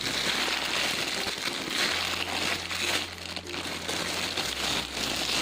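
Crinkling and rustling handling noise as a jumbo donut squishy toy is turned over and squeezed in the hands, uneven throughout, over a faint steady low hum.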